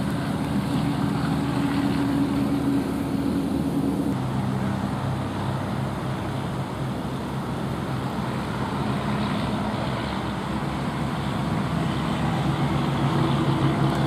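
Kubota diesel tractor running steadily while pulling a rotary mower through pasture grass. The engine note drops about four seconds in and rises a little again near the end.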